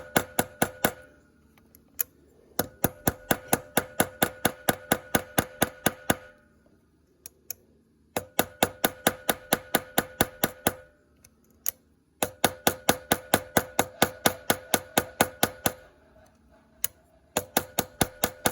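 Small hammer tapping the ends of a copper-wire rivet set in a nickel pendant on a metal block, peening the wire to spread the rivet heads. The blows come in quick runs of several a second, each with a ringing metallic tone, with short pauses between the runs.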